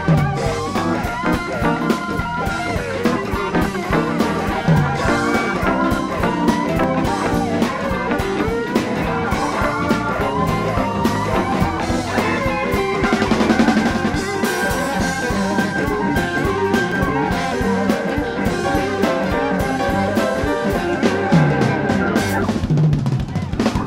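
Live blues-rock band playing an instrumental jam: electric guitars over drum kit and bass. About halfway through a single high note is held for several seconds over the band.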